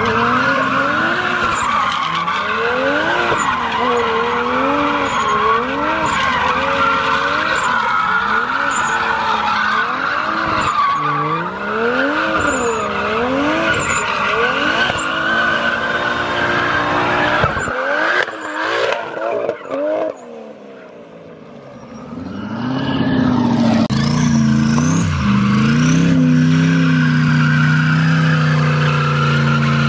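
A car doing donuts: the engine revs rise and fall over and over under a continuous tire squeal. About 18 seconds in it drops off briefly, then the engine is held at high revs with the tires squealing again.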